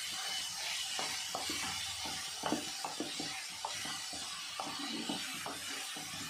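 Chopped onions sizzling in hot mustard oil in a kadhai, with a spatula scraping and clicking against the pan at irregular moments as they are stirred toward golden brown.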